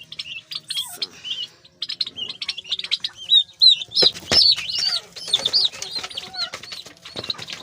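A group of month-old poultry chicks peeping, many rapid high chirps overlapping, loudest around the middle, with scattered light clicks.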